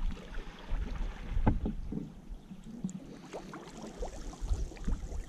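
Water sloshing around a small boat, with scattered knocks and clicks and an uneven low rumble.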